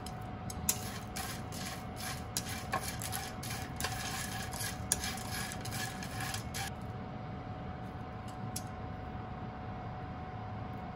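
Chopsticks stirring dried baby sardines (gomame) in a dry, oil-free frying pan: a rapid clatter and scraping of the small, hard fish against the pan for about six seconds, then only a few scattered clicks. The fish are being dry-roasted over low heat until they are brittle enough to snap.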